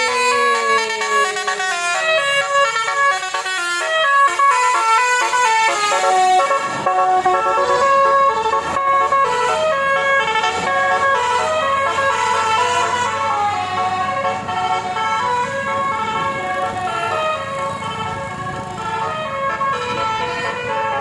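Several basuri musical car horns sounding at once, playing overlapping multi-note tunes, with a falling siren-like glide in the first couple of seconds. A low steady engine drone joins about seven seconds in.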